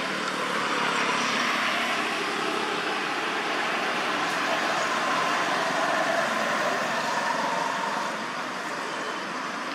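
Steady rushing noise like distant road traffic, a little louder through the middle and easing near the end.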